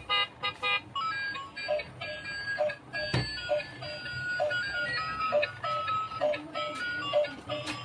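Music with a steady beat, about two pulses a second, under a melody of held, stepping notes.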